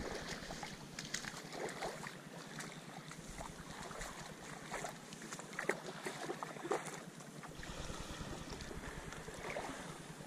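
Wind on the microphone and water lapping around a small moored motorboat, with scattered small knocks and clicks from gear being handled aboard.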